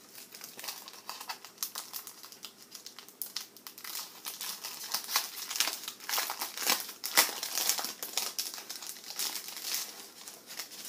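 A shiny pink plastic wrapper around a greeting card crinkling as hands handle it and work the card out, a dense, irregular crackling that grows louder through the middle stretch.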